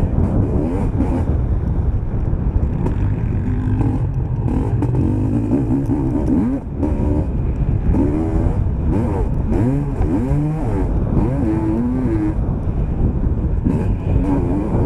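Motocross bike engine, heard from on board, revving up and easing off again and again as the rider works the throttle through the gears. The engine pitch climbs and drops several times, with a short drop in loudness about six and a half seconds in.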